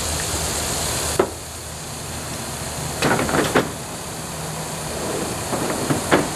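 Knocks and scrapes of gear being handled and slid around in a pickup truck bed: a sharp knock about a second in, a cluster of thuds and scrapes around three seconds in, and a few more knocks near the end, over a steady hiss.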